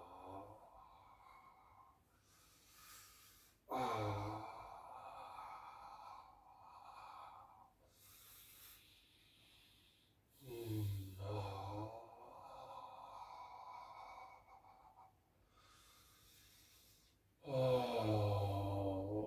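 A man's long voiced sighs on the out-breath during a bioenergetics exercise, three of them, each lasting two to three seconds. Softer breathing in can be heard between them.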